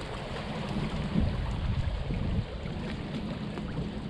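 Wind buffeting the microphone in a steady low rumble, over small waves lapping on choppy lake water.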